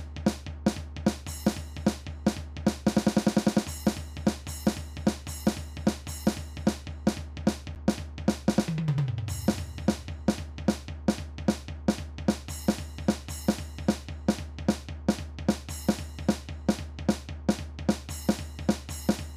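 Drum kit playing a fast, steady punk beat, bass drum and snare alternating under cymbals, played back from the drum score. About 3 s in there is a quick run of sixteenth-note snare hits, and about 9 s in a short fill falls in pitch down the toms.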